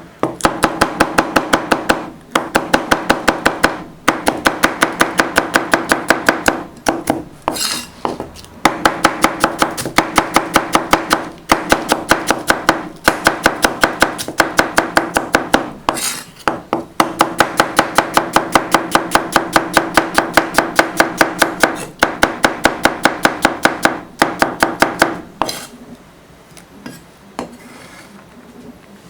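A kitchen knife chopping vegetables on a cutting board: fast, even knocks, several a second, in runs of a few seconds with short pauses. The chopping stops about three-quarters of the way through.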